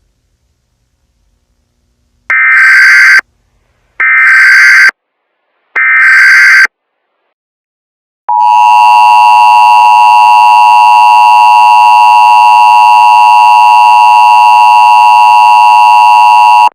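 NWR-SAME emergency alert header: three loud bursts of screeching digital data tones, about a second each, followed by a loud, steady attention tone held for about eight seconds.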